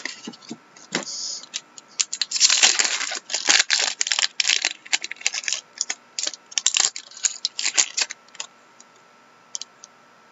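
A stack of glossy hockey trading cards being flipped and shuffled by hand: a quick run of crisp card clicks and rustles, busiest in the first half and tapering off, with a few soft ticks near the end.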